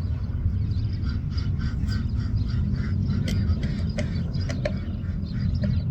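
A bird calling in a quick repeated series, about three calls a second. A few sharp clicks come in the second half, over a steady low rumble.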